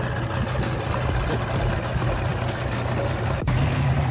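Mercury EFI outboard motor running just after being started, with water churning at the stern. A sharp click comes about three and a half seconds in, after which the motor runs louder.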